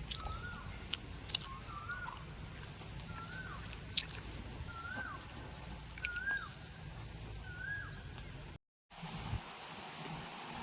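A bird repeating a short call that rises then falls in pitch, about once a second, seven or eight times, over a steady high hiss. The audio cuts out briefly near the end and the background changes after it.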